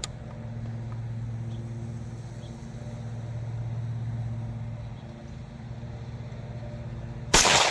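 A single rifle shot from an AR-15 in .300 AAC Blackout about seven seconds in: one sharp, very loud report with a short echo, from a bullet the chronograph puts at about 2,020 feet per second, so supersonic. Before it, a small engine, a lawn mower, runs with a steady hum.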